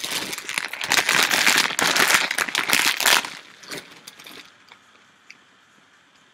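Audience applauding, a dense crackle of many hands for about three seconds that then dies away.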